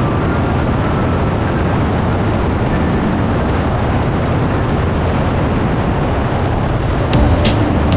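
Harley-Davidson motorcycle running at road speed, its engine buried in a steady rush of wind on the microphone. A run of sharp, regular ticks comes in about seven seconds in.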